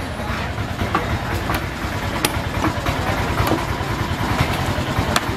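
An engine idling steadily with a fast low pulse, with a few sharp knocks at irregular intervals over it.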